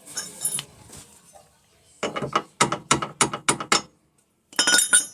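Quick run of short mechanical clicks or knocks, about five a second, from hand-tool work on a washing machine under repair, with a second dense burst near the end.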